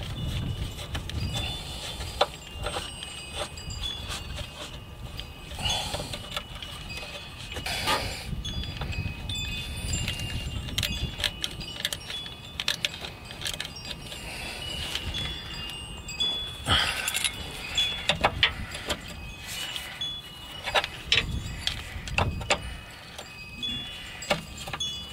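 Small metallic clicks and clinks as the clutch hydraulic line fitting is threaded into a new slave cylinder by hand and then snugged with an open-end wrench. Short, high ringing notes come and go in the background over a low rumble.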